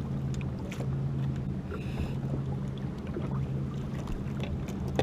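Electric trolling motor on a bass boat humming in short spells, stopping and starting as it holds the boat in place, over light wind and water noise with a few faint clicks.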